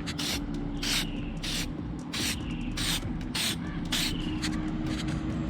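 Aerosol headlight coating sprayed onto a restored headlight lens in a quick series of short hissing bursts, a little under two a second.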